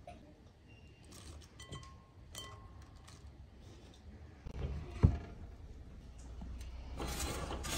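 Light clinks against a glass bowl with brief ringing tones as fresh greens are handled in it, then a sharp knock about five seconds in, the loudest sound. Near the end comes a scraping rush as a metal baking tray is pulled out along the rack of a small electric oven.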